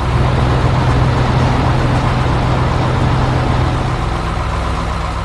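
Heavy construction-vehicle engine running steadily, a low diesel-like rumble with a hum that eases off about four seconds in.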